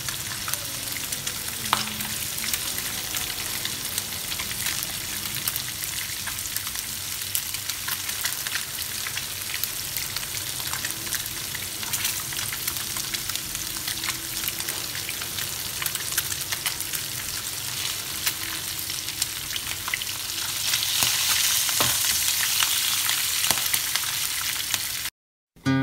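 Pomfret pieces shallow-frying in bubbling oil in a pan: a steady sizzle with fine crackles that grows louder about twenty seconds in, then cuts off suddenly near the end.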